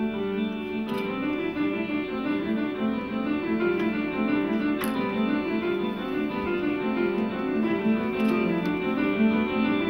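Instrumental classical music with fast, evenly running notes on a keyboard instrument, accompanying a ballet variation; a few faint clicks sound over it.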